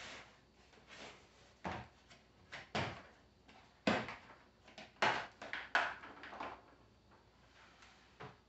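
Hard plastic tool carrying case being laid flat on a wooden table, its latches unsnapped and the lid opened: a series of sharp plastic knocks and clicks, with a quick cluster about five to six seconds in.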